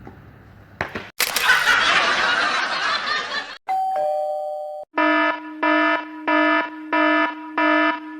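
A sequence of sound effects: a loud burst of noise lasting about two seconds, then a two-note ding-dong chime falling in pitch, then a buzzy beeping tone repeated about five times, roughly one and a half beeps a second.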